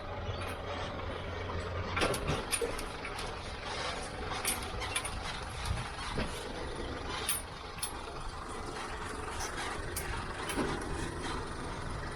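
A car engine running as it reverses a boat trailer down a launching ramp. Scattered sharp clicks and knocks sound over it from about two seconds in.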